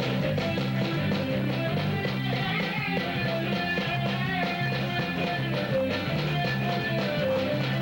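A band playing live with electric guitar, bass and drum kit in an upbeat rhythm.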